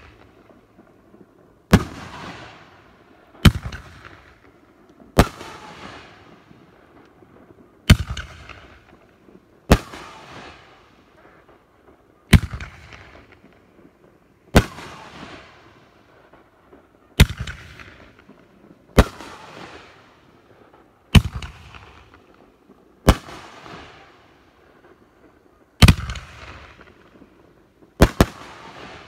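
BoomWow 'Cowboy Fight' 9-shot consumer firework cake firing shell after shell: a sharp bang roughly every two seconds, about fourteen in all, each trailing off over a second or so.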